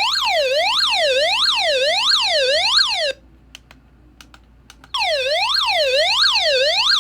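EoxSmile CR1009 hand-crank emergency radio's SOS alarm: an electronic siren sweeping down and back up about twice a second. It stops about three seconds in, a few faint clicks follow, and it starts again about two seconds later.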